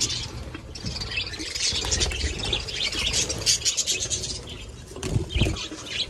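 A flock of budgerigars chattering with rapid high chirps, with wings flapping as birds fly about the aviary. A couple of low thumps about five seconds in.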